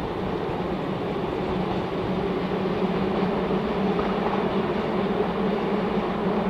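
Train running past on the line: a steady rumble with a low drone, slowly growing louder.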